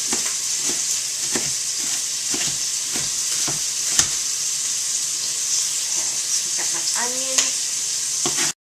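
Sausage frying in a pot, a steady sizzling hiss, with a knife knocking on a cutting board about three times a second as an onion is chopped. The sound cuts off suddenly just before the end.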